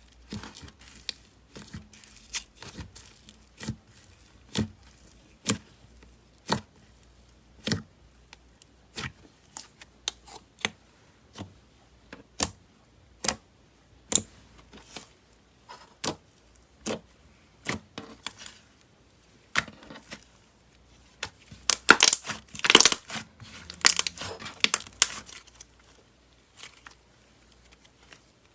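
Slime being pressed and worked by hand, giving sharp crackling pops about once a second, then a dense run of louder crackling about three quarters of the way through.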